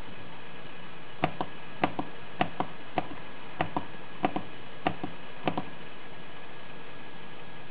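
Push-buttons on a JUUKO K-series wireless crane remote being pressed during pairing: sharp clicks, mostly in quick press-and-release pairs, about one pair every half second. They stop about five and a half seconds in.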